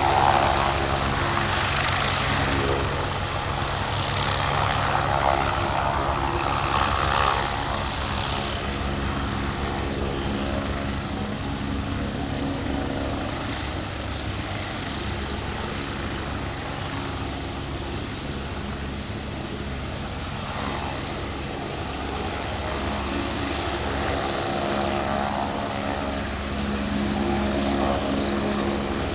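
Turbine helicopter running: a steady engine whine over a rapid low pulsing from the rotor. It is louder and hissier for the first several seconds, then settles to a steadier level.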